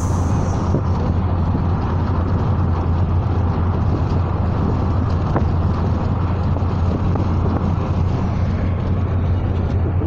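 Steady noise of a moving car heard from inside the cabin: a low, even rumble of road and wind noise, with wind buffeting the microphone.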